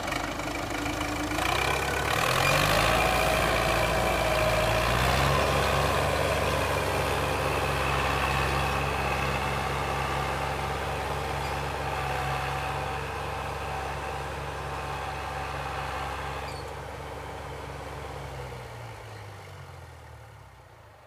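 Massey Ferguson tractor's diesel engine revving up about two seconds in as it pulls a duck-foot cultivator through the soil, then running steadily under load. It fades near the end as the tractor draws away.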